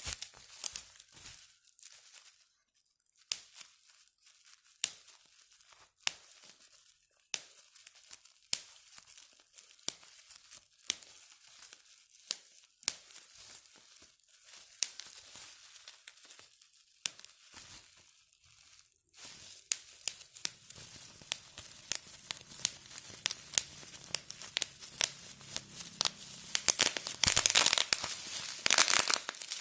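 Plastic bubble wrap being pressed, its bubbles popping one at a time as sharp snaps amid plastic crinkling. The snaps are spaced about a second apart at first, then come thick and fast near the end.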